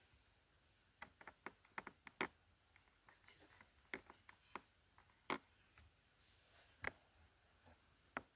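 Faint, irregular small clicks and taps from handling plasticine and sculpting tools on a tabletop: a quick cluster in the first couple of seconds, then single taps every second or so.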